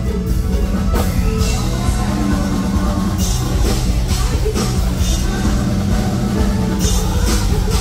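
Live Thai luk thung band playing loud, upbeat music through a stage PA, driven by a steady drum-kit beat with keyboard.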